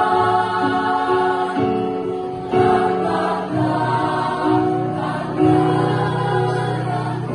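Women's choir singing in harmony, holding chords that change about every second.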